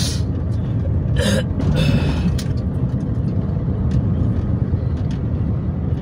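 Steady low road and engine rumble inside the cabin of a car driving along a town road. A few short, sharper sounds break through at the start, about a second in and around two seconds.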